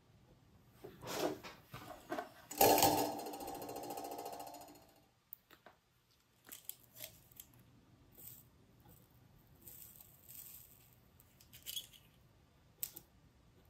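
Small clicks and taps of soldering tools, wires and a plastic model locomotive shell being handled on a workbench. A few seconds in, a steady pitched buzz sounds for about two seconds and fades out.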